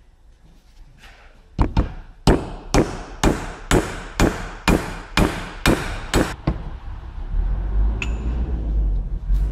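About a dozen sharp metal-on-metal taps, roughly two a second, starting about a second and a half in: a steel bar on two stacked old bearings is struck to drive an ABS reluctor ring down onto a driveshaft's outer CV joint. Near the end comes a single short metallic clink over a low rumble.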